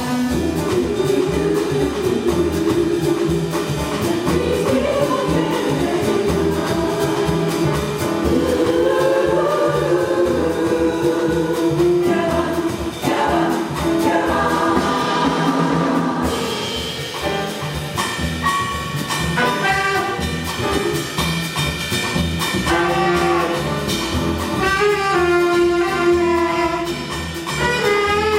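Jazz chorus singing with a small band of piano, saxophone, bass and drums.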